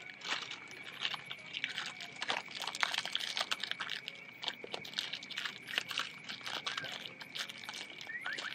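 Campfire crackling with scattered small pops and crinkles, over a steady faint high-pitched tone.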